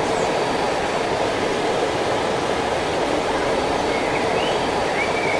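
Steady, even rush of running water, with a few faint high chirps about four and five seconds in.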